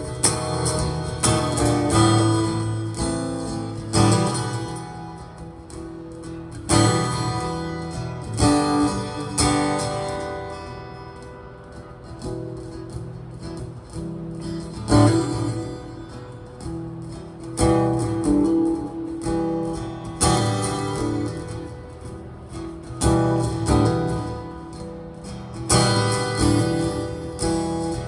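Fender Hellcat acoustic guitar being strummed, chords struck and left to ring, with a softer, quieter passage in the middle.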